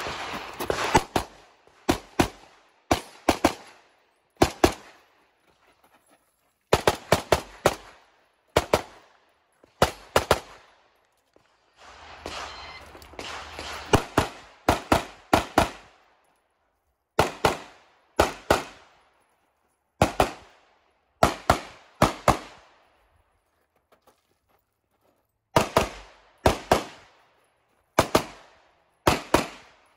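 Competition pistol fired rapidly, mostly in quick pairs and short strings of shots, with gaps of a second or two between strings.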